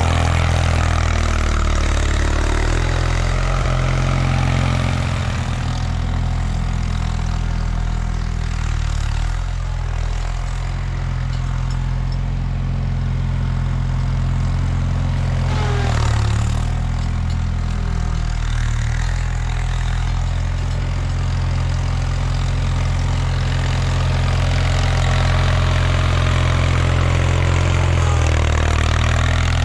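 1979 Bolens HT-23 garden tractor's 23 hp opposed-twin K582 engine running steadily, its pitch dipping and recovering a few times as the load changes while working through snow.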